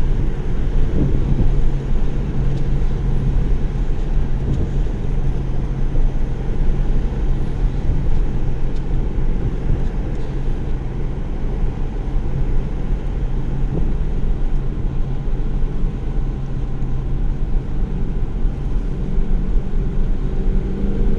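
Holden Commodore VFII SS-V's LS3 V8 heard from inside the cabin while driving: a steady low engine drone through the bimodal sports exhaust, mixed with road and tyre noise.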